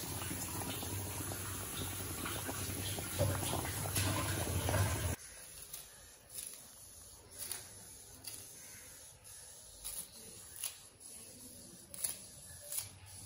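Fish curry boiling hard in a metal pan: a dense bubbling, sputtering hiss. About five seconds in it cuts off abruptly, leaving a much quieter background with a few short, soft clicks.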